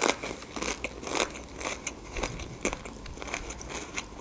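Close-miked crunching and chewing of a Doritos tortilla chip: a quick, irregular series of sharp crunches.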